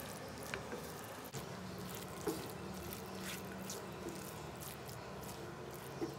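A wooden spatula stirring and turning cooked rice in a non-stick pan, making soft scrapes and scattered light taps over a faint low hum.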